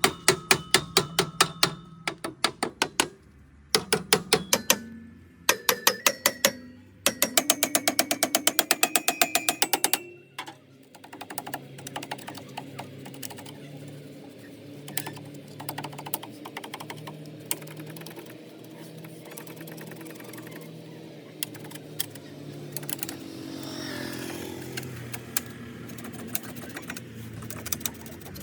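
Rapid hammer blows ringing on a tractor's steel exhaust silencer, in several runs of about six strikes a second, to free a silencer jammed with carbon. The hammering stops about ten seconds in, leaving only occasional light knocks.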